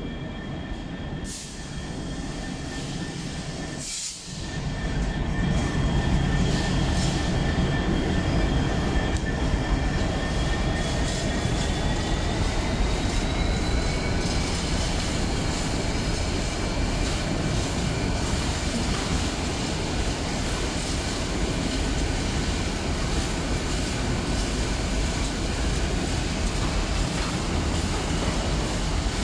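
Freightliner Class 66 diesel locomotive, its EMD two-stroke V12 engine running, passing slowly with a train of empty flat wagons, growing louder about five seconds in as it draws alongside. Wheels squeal in thin high steady tones that slide up in pitch partway through, over the rumble of the wagons on the track.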